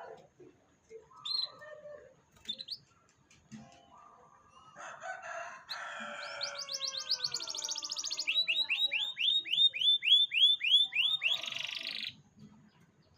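Domestic canary singing: a few scattered chirps, then a fast trill leading into a run of about a dozen repeated sweeping notes, about four a second, that stops abruptly. It is song of the kind used as a lure to get young canaries to sing.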